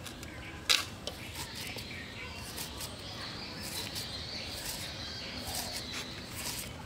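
Carrot being sliced on a boti, a curved blade fixed in a wooden base, giving crisp cutting clicks; the loudest comes just under a second in, then a run of smaller ones. Birds chirp faintly in the background.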